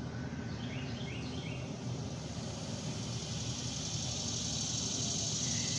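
Steady background ambience with a high hiss that grows slightly louder, and three short falling chirps about a second in.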